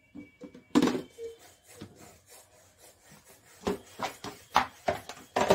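Plastic baby bottles and parts being set into a plastic steam-sterilizer tray: an irregular run of knocks, clicks and rubbing. The loudest knock is about a second in, with a cluster more in the last two seconds.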